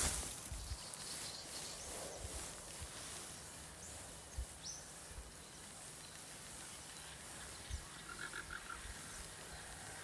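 Quiet outdoor background with a few low bumps, a short high chirp about halfway through, and a quick run of short repeated calls near the end, likely from a bird.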